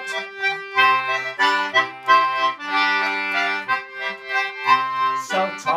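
Concertina playing an instrumental passage in chords, with low bass notes coming and going under the melody.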